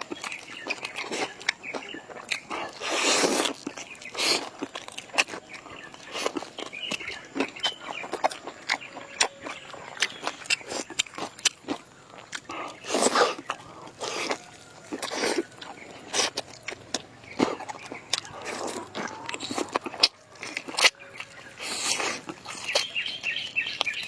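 People eating noisily at close range: steady chewing and biting with frequent lip-smacking clicks, and a few louder, longer bursts of eating noise spread through.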